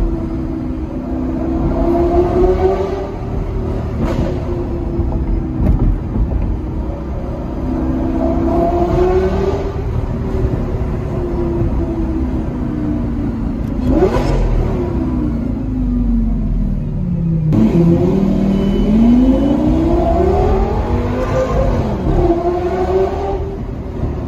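A car engine revving up and easing off several times as the car accelerates, with a sharp rev that climbs and falls quickly about halfway through and a long climb from low revs in the last third.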